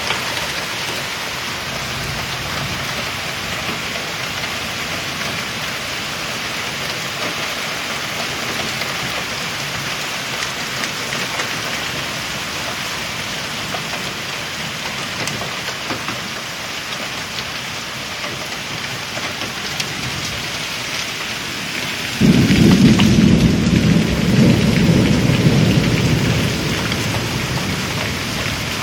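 Steady rain falling throughout, then, well past the middle, a sudden loud clap of thunder that rumbles low for several seconds and dies away under the rain.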